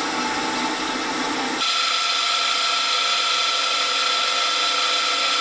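Mini milling machine cutting holes in an aluminium block, first with a spot drill and then, after a sudden change about one and a half seconds in, with a twist drill. The second part carries a steady high whine.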